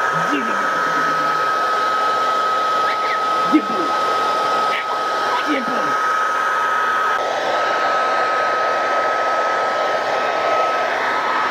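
A loud, steady rushing noise with a thin, steady whine running through it. Three short voice sounds come through it: about a second in, near four seconds and near six seconds.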